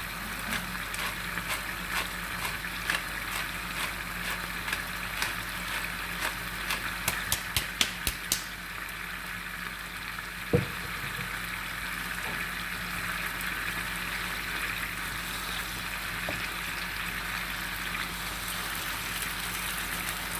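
Chicken frying in hot oil: a steady sizzle with scattered crackles and a quick run of sharp pops about seven to eight seconds in. A single knock comes about ten seconds in.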